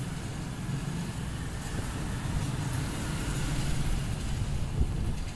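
Steady low rumble of background traffic.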